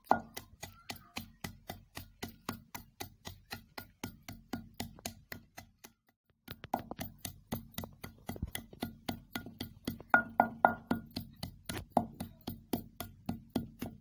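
Peanuts being pounded by hand in a mortar and pestle (kundi danda): quick, even strokes at about four a second, with a short pause about six seconds in.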